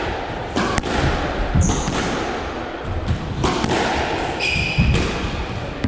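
A squash rally: the ball knocks sharply off rackets and walls a handful of times, and rubber-soled shoes squeak on the wooden court floor at about one and a half seconds and again between about four and a half and five seconds.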